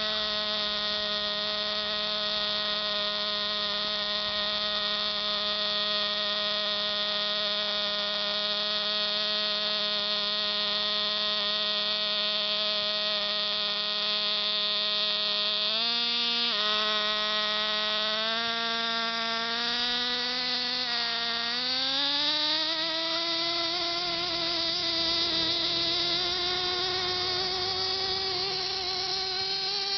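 Small nitro glow engine of a radio-controlled buggy running with a steady high buzz, then its pitch steps up a couple of times and rises about two-thirds of the way in as the throttle opens, wavering up and down after that.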